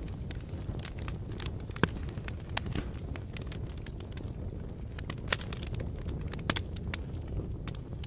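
Wood fire burning: a steady low rumble of flame with frequent sharp crackles and pops, the loudest about two seconds in and again about five seconds in.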